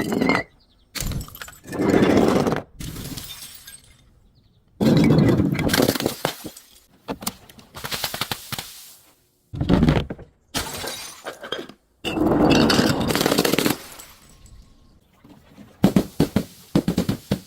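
Glass bottles breaking: a string of separate shattering, crunching crashes with short gaps between them, several cut off abruptly.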